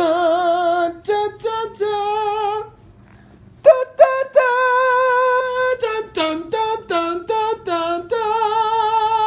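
A single voice singing a cappella, with no instruments: a run of short notes and long held notes with vibrato. There is a pause about three seconds in, and there are two long held notes, one in the middle and one at the end.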